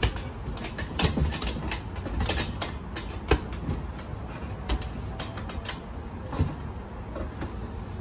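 Irregular clicks and knocks, a dozen or more and unevenly spaced, over a steady low rumble; the sharpest knock comes a little past the middle.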